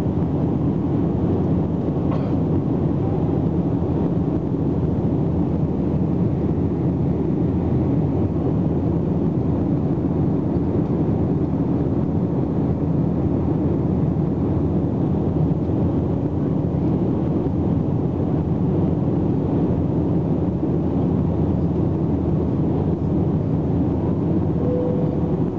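Steady cabin roar of an Airbus A321 climbing after takeoff, heard from a window seat over the wing: jet engine noise and rushing air, deep and even with no change in pitch.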